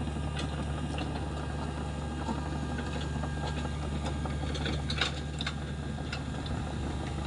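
Hitachi ZX48U mini excavator's diesel engine running steadily, with a handful of sharp metal clanks about four and a half to five and a half seconds in, the loudest about five seconds in.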